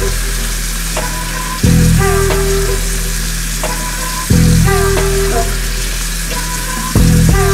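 Steady hiss of water running from a bathroom sink tap into the basin, as a toothbrush is wetted under it. Background music plays over it, with a deep bass note landing about every two and a half seconds.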